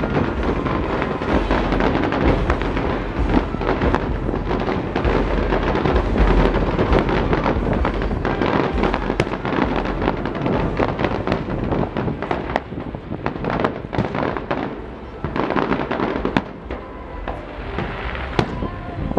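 Aerial fireworks show: a dense barrage of many rapid, overlapping bangs over a low rumble, thinning out near the end.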